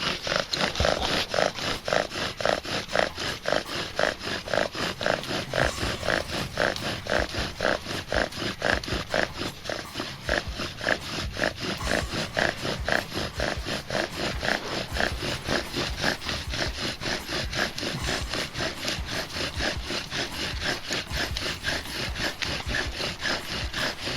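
Bow drill being worked: the bow is drawn back and forth in steady, fast strokes, about three or four a second, and the wooden spindle squeaks and grinds against the hearth board.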